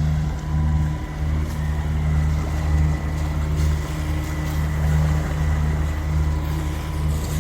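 Steady drone of a Lagoon 46 catamaran's diesel engines motoring in gear at a constant speed through calm sea, a low even hum without changes.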